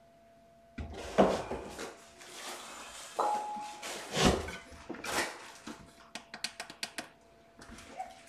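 Handling noises: several knocks and rustles, a short steady tone about three seconds in, and a quick run of sharp clicks near the end, as room lights are being switched and set up.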